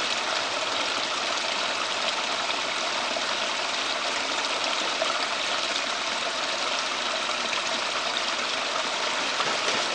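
Steady running and splashing water from a backyard pond and pool water feature, an even rushing sound with no breaks.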